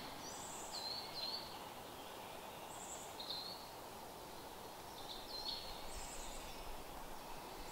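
Faint woodland birds calling with short, high chirps every second or so over a steady background hiss.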